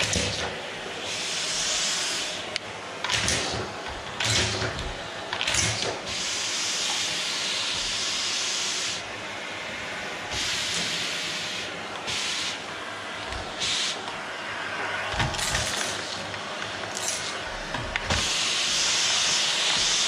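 Canister vacuum cleaner running over a wooden floor, its airflow hiss swelling and easing every few seconds, with a few brief clicks.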